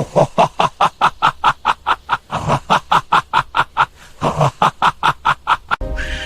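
Rapid, rhythmic snickering laughter, about five short pulses a second with two brief breaks, cutting off suddenly near the end.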